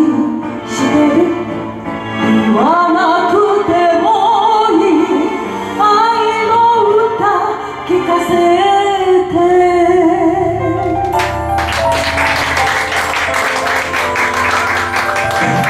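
A woman sings a slow Japanese ballad with vibrato over a karaoke backing track. About eleven seconds in her voice stops while the backing track plays on, and a dense run of sharp clicks joins the music.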